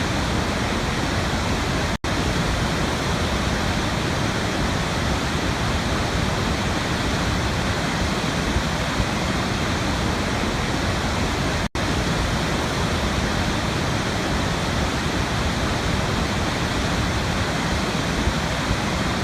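Waterfall: a steady, even rush of falling water, broken twice by a momentary dropout, about two seconds in and again near the middle.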